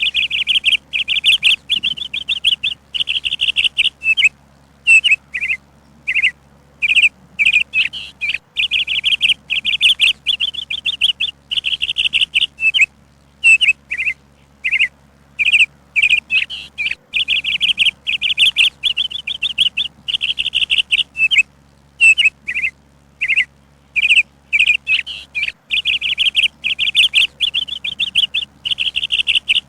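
A songbird chirping: fast trilled phrases lasting a second or two, alternating with short single chirps and brief pauses, high-pitched and repeating in a regular pattern.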